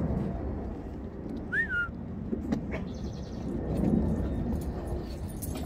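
Dogs playing on a wooden deck: scuffling paws and soft knocks over a low steady rumble. About one and a half seconds in there is a short high chirp that rises and then falls.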